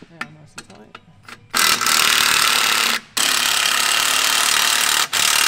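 Cordless power tool spinning out the clutch pressure plate bolts in three runs of a second or two each, with short pauses between, after a few faint clicks at the start.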